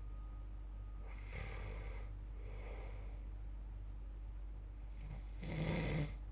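A person snoring: two soft breaths about a second and two and a half seconds in, then one loud snore near the end.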